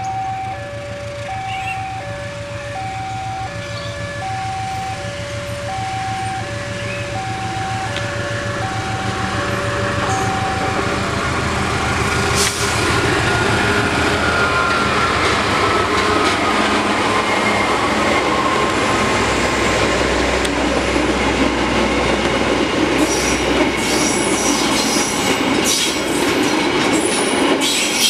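A level-crossing warning alarm sounds two alternating tones, repeating evenly, for about the first ten seconds. Then a diesel-electric locomotive hauling a passenger train approaches and passes close by, its engine rumbling, followed by the coaches' wheels clacking on the rails with some high wheel squeal near the end.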